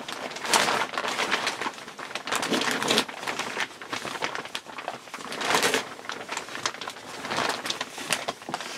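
Thin plastic NBC poncho crinkling and rustling as the arms move around the head while a rubber gas mask's head harness is pulled tight, swelling louder every two to three seconds.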